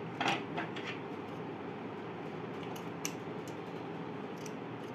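Paper and cardboard being handled: soft crinkling clicks early on, then a few short snips of scissors cutting paper around the middle and near the end, over a steady low background hum.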